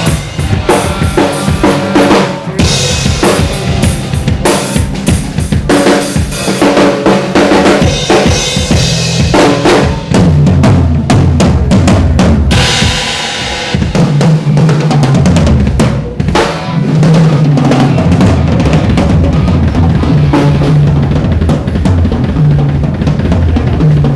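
Rock band sound check heard from on stage: a drum kit played loud, bass drum and snare hits in quick succession. Low bass notes come in about ten seconds in and run under the drums.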